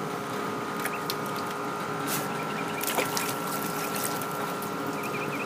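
Water pump running steadily with a hum and water trickling in the tank, with a few faint clicks or splashes, one clearer about three seconds in.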